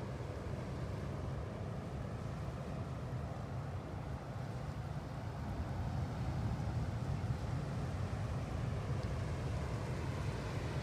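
Steady low rumble of ocean surf along the rocky shore, mixed with wind on the microphone, growing a little louder about six seconds in.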